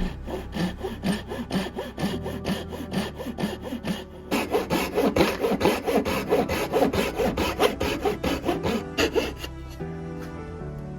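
Hand saw cutting wood in quick, even back-and-forth strokes, several a second. The strokes grow louder about four seconds in and fade near the end.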